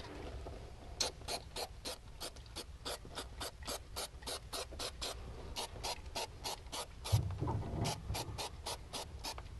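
Aerosol can of spray glue sprayed in quick short bursts, about four a second, with a couple of brief pauses.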